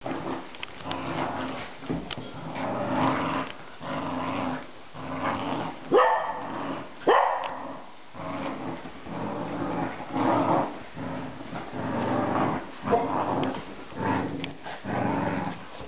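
Dogs growling in rough play while tugging and shaking a plush toy: a string of low growls, each about a second long, broken by two sharp high yelps around six and seven seconds in.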